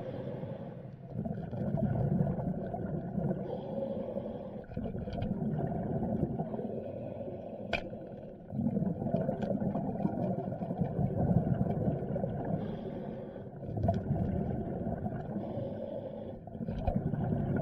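Underwater sound picked up through a diving camera's housing: a low, muffled rumble of moving water that swells and fades every few seconds, with a few sharp clicks, the clearest about eight seconds in.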